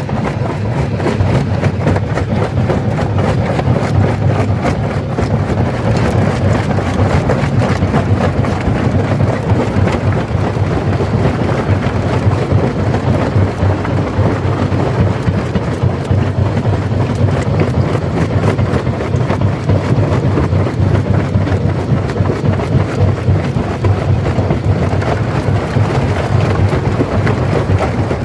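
Stone crusher breaking rock: a steady heavy rumble with a dense crackle and rattle of stones being crushed, running continuously without a break.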